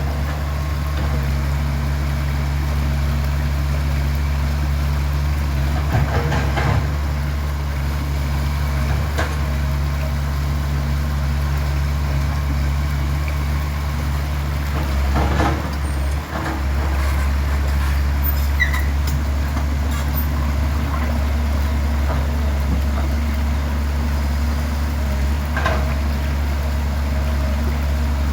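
Excavator engine running steadily, with a few short knocks now and then.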